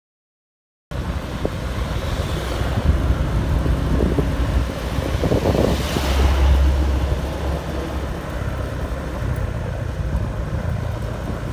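Silence for just under a second, then the steady road noise of a vehicle moving along a city street, with wind buffeting the microphone and low rumbling swells around the middle.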